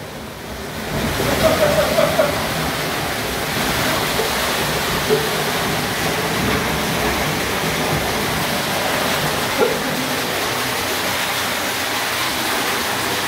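Floodwater rushing down a narrow cave canyon passage: a steady, noisy torrent that swells up over the first second or two and then holds, the sound of a flash flood surging through the cave.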